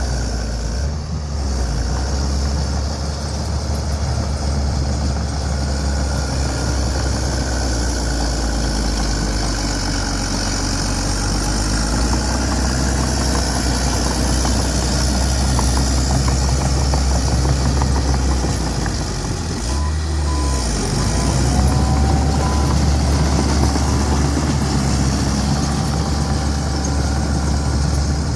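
Bulldozer's diesel engine running steadily under work as the machine compacts soil, with a brief dip about two-thirds of the way in.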